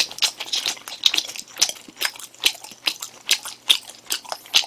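Close-miked chewing of chewy rice-cake tteokbokki, a steady run of wet mouth smacks about three a second.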